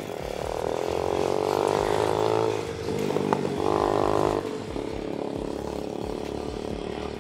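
Sur-Ron electric dirt bike's motor whining under throttle as it is ridden, surging twice in the first half, then running at a steadier, quieter pitch.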